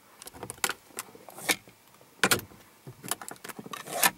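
A string of sharp plastic clicks and knocks, about eight in four seconds, from the hard plastic interior trim and storage compartments of a pickup cab being handled.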